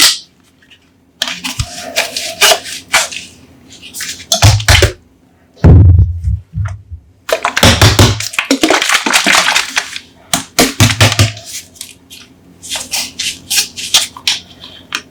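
Coca-Cola soda bottles handled close to the microphone: quick clicks, crackles and taps with several dull thumps, and a longer stretch of fizzing hiss about halfway through.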